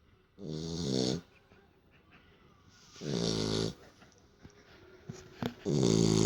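Beagle snoring in its sleep: three loud snores, each under a second long, about two and a half seconds apart.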